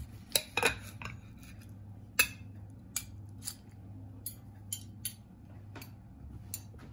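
Knife and fork clicking and scraping against a plate while slicing roast turkey breast, a dozen or so light, irregular clicks. A faint low hum runs underneath.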